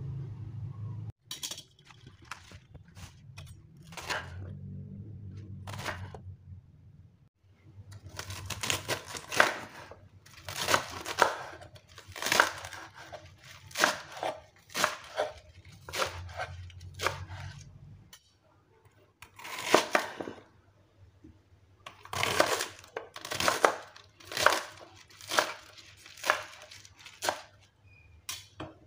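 Kitchen knife chopping crisp pak choi (bok choy) stalks on a wooden cutting board: a few single cuts at first, then from about eight seconds in quick runs of sharp cuts in clusters, each stroke ending on the board.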